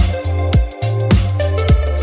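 Background electronic music with a steady beat: a kick drum about twice a second over a held bass line and synth chords.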